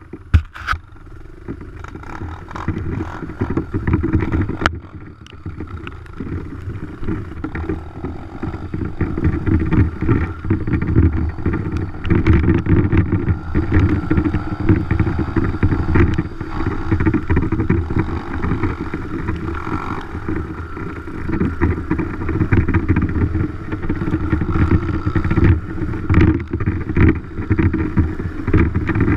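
Dirt bike engine running under changing throttle as the bike is ridden, growing louder over the first several seconds and then rising and falling with the throttle. There are a couple of sharp knocks near the start.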